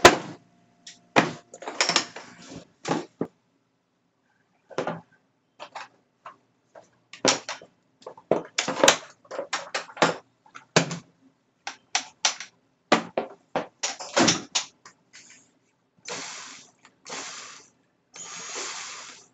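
Hard plastic clicks, knocks and rattles as a Bosch blow-moulded tool case is opened and its cordless drill and battery pack are handled. There are many separate sharp knocks, with soft scraping and rubbing near the end.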